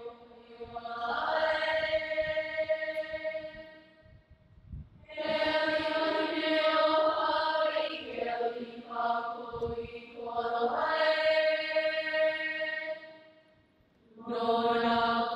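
A large group of schoolchildren and adults singing together, long sustained notes in phrases several seconds long, with two short breaks between phrases.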